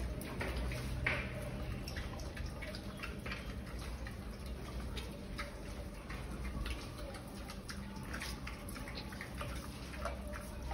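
Pigs moving and nosing about on a wet concrete pen floor: a scatter of small wet clicks and ticks over a low rumble.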